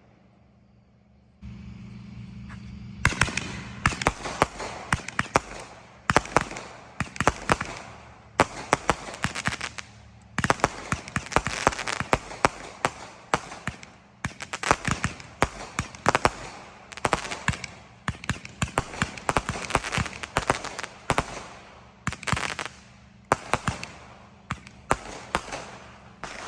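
200-gram consumer firework cakes firing: a continuous run of sharp bangs and crackling breaks, several to the second, starting about three seconds in.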